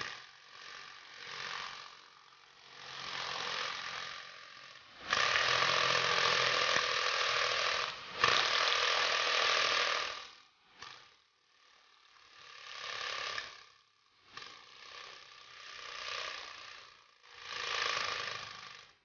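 Airsoft M134 minigun firing 6 mm BBs in repeated bursts: a rapid mechanical rattle over a steady motor whine, swelling up and dying away. The longest and loudest burst starts about five seconds in and runs for about five seconds.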